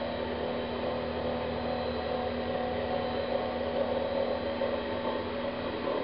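Steady mechanical hum of heating plant-room equipment, several even tones over a constant whirring noise with no change.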